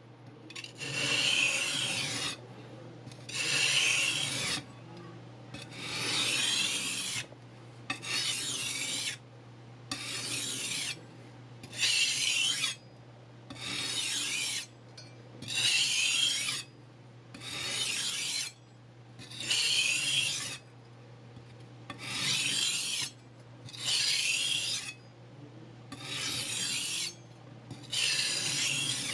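A kitchen knife's blade drawn in even strokes across sandpaper on a block while sharpening it: about fourteen rasping strokes, one every two seconds, each lasting a little over a second.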